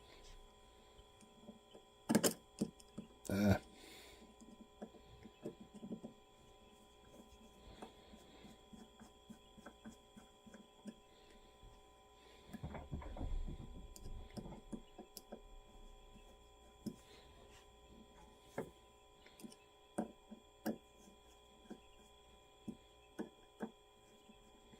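Scattered small clicks and taps of a motorcycle fuel petcock's parts and screws being handled and fitted together, over a steady electrical hum. A denser cluster of knocks comes about thirteen seconds in.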